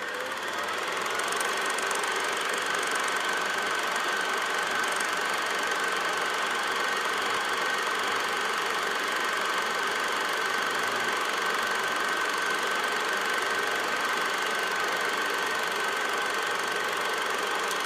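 Steady whirring rattle of a film projector running, with a constant high whine, fading in at the start and out at the end.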